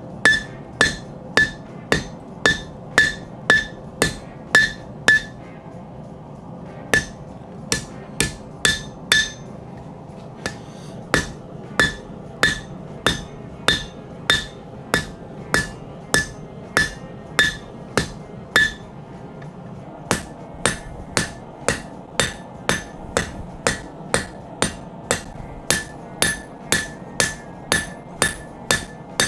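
Hammer striking hot spring steel on an anvil while forging a Bowie knife blade: runs of sharp, ringing blows, about two to three a second, with a few short pauses between runs.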